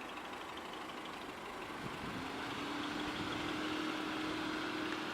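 A motor vehicle's engine running steadily over a background hum, the engine note coming in about two seconds in and holding.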